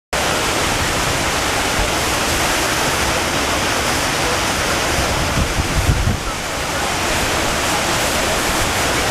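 Fountain water splashing and pouring in a steady rush, with a brief low rumble of wind on the microphone about two-thirds of the way through.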